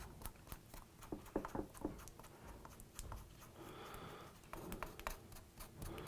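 Light, irregular clicks and knocks of hand screw clamp parts, wooden jaws and steel hardware, being handled and fitted together, with a few ringing taps early and a short rubbing sound a little after halfway.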